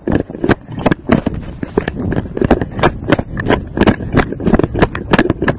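Quick, irregular thumps and scuffs, about three to four a second, of someone moving fast on foot with a body-worn camera knocking and rubbing against their clothing.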